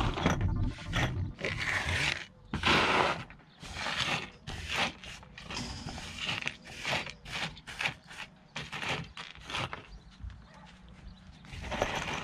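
Small scrap metal parts (copper contacts, steel springs and screws) being pushed and sorted by a gloved hand on cardboard: irregular clinks, rattles and scrapes of metal against metal and card, loudest about two and a half seconds in and near the end.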